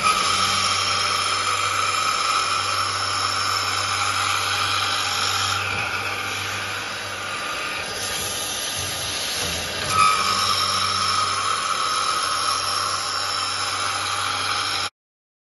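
INTOREX MTA 500 slot drilling machine running: a steady motor hum under a high hiss, with a sharp sound at the very start and another about ten seconds in. The hum fades for a few seconds in the middle, and the sound cuts off suddenly near the end.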